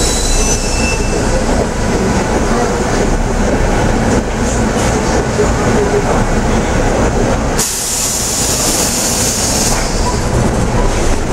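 Cabin noise inside a Yutong ZK6110HGV city bus while it drives along: its Yuchai YC6G220P-30 six-cylinder engine runs steadily under a low rumble of road and body noise. A hiss joins in about seven and a half seconds in and lasts about two seconds.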